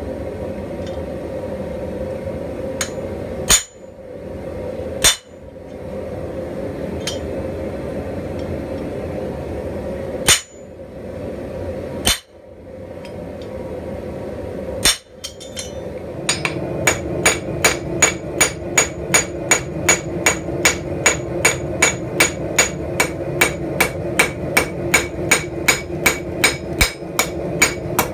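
Blacksmith's hand hammer striking steel on an anvil over a steady rushing noise. There are a few separate blows in the first half, then from a little past halfway an even run of forging blows at about two and a half a second.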